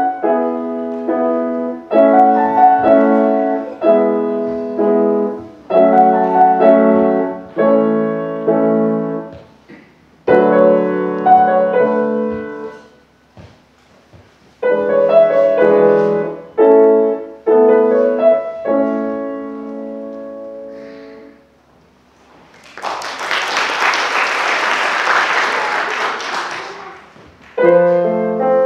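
Grand piano played in short phrases with pauses between them, the last chord dying away a little after twenty seconds in. A few seconds of audience applause follow, and near the end the piano starts a new piece.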